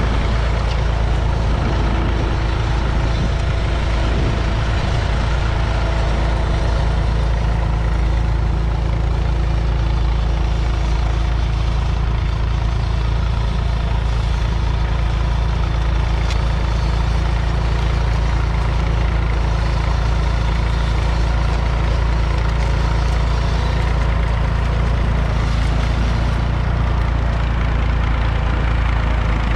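Massey Ferguson 148's 2.5-litre three-cylinder diesel engine running steadily under load while pulling a two-furrow mounted plough.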